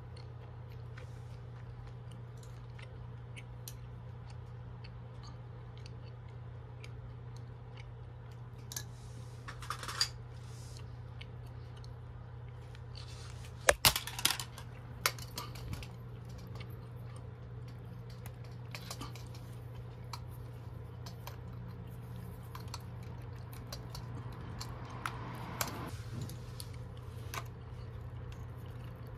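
Light clicks, rattles and rustles of hands handling wires, a small electronic speed-controller board and metal pliers, with a cluster of sharp clicks about halfway through. A steady low hum sits underneath.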